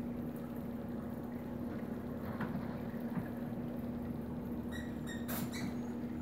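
Reef aquarium's pumps humming steadily, with water running and churning through the tank. About five seconds in, two short high electronic beeps are followed by a sharp click.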